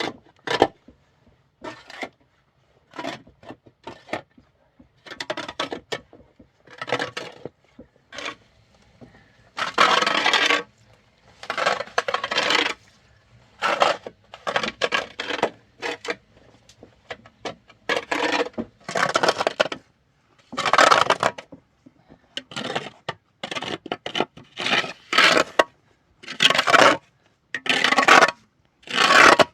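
An irregular run of short scraping strokes, some brief and some lasting about a second, with gaps between them.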